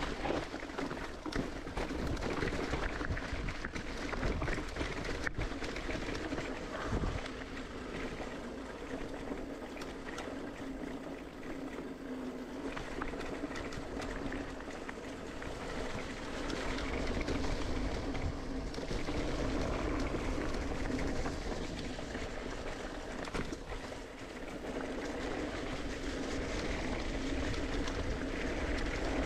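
Mountain bike rolling along a dirt singletrack trail: steady tyre and drivetrain rumble with many small clicks and knocks, its loudness rising and falling.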